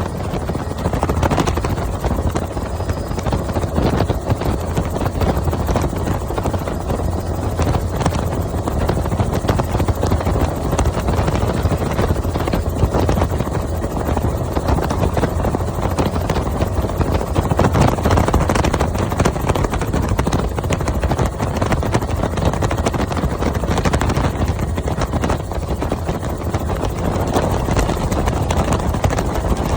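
Helicopter running, a loud, steady rotor and engine noise that carries on without a break.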